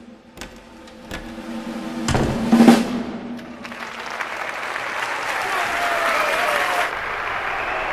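Film soundtrack of a stage-magic scene: a low sustained music tone with a few soft knocks, a loud drum-like hit between two and three seconds in, then a theatre audience applauding from about four seconds in.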